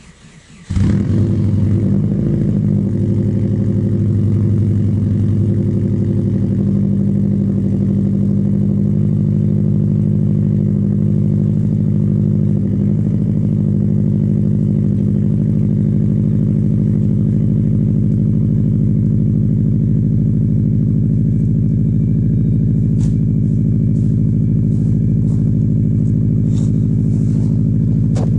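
A Subaru turbocharged flat-four (WRX engine) catching after a brief crank, in a cold start at −11 °C. It then idles steadily through a 2.5-inch exhaust.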